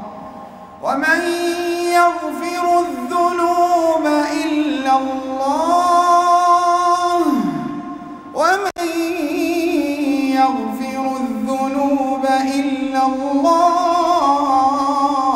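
Imam's melodic Quran recitation, one man's voice heard through the mosque's microphone and loudspeakers, drawing out long held notes with sliding ornaments. There is a short break for breath a little before the middle.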